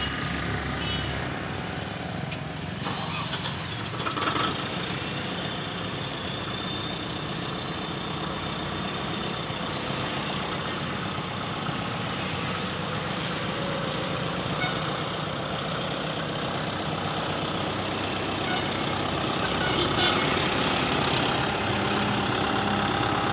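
Kubota MU5501 tractor's diesel engine running steadily at low revs, growing a little louder near the end as the tractor drives down the loading ramp.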